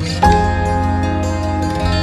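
Gentle instrumental background music with a steady bass line; a new note comes in about a quarter second in.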